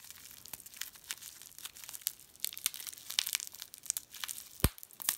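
Clear plastic wrap crinkling and crackling as it is peeled and torn off a plastic coin capsule, in irregular small crackles, with one sharper click about four and a half seconds in.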